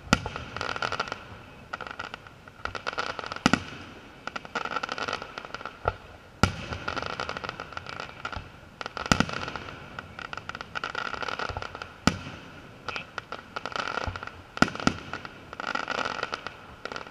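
Aerial firework shells bursting, a sharp bang every two to three seconds, with dense crackling from glittering stars in between.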